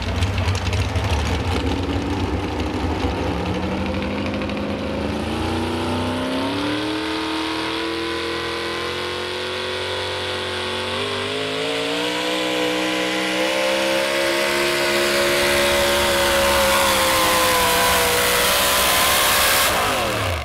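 Modified four-wheel-drive pulling truck's engine at full throttle on a pull. Its pitch climbs for several seconds, sags about ten seconds in, then climbs again and holds high with a rising high-pitched whine.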